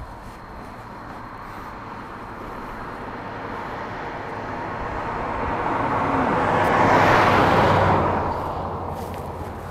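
A vehicle passing by: its road noise builds slowly, peaks about seven seconds in, then fades away.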